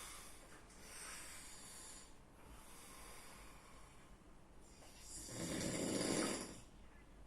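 A sleeping person snoring: softer breaths for the first few seconds, then one louder snore about five seconds in that lasts about a second and a half.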